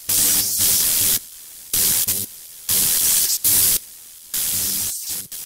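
Static noise effect: loud bursts of hissing static cutting in and out about five times, with a fainter low hum in the gaps.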